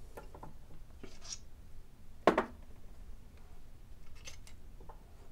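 Coin-punch die set being taken apart by hand on a hydraulic press bed: light metal clinks and a short scrape, with one much louder knock a little over two seconds in as a part is set down.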